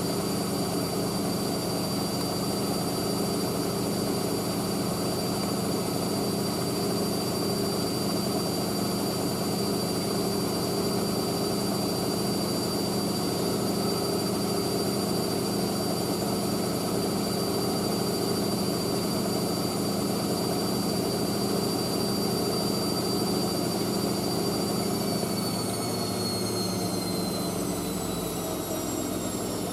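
Hoover AAA160 Whisper 1600 washing machine in its 800 rpm final spin, the motor and drum running with a steady high whine and hum and shaking a little. About 25 seconds in the whine begins to fall as the spin starts to slow down.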